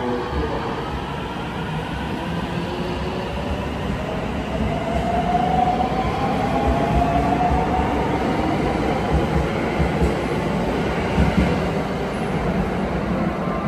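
JR 521 series electric multiple unit, two sets coupled, pulling out of the station and accelerating away. Its traction motors give a rising whine, over a steady rumble of wheels on the rails.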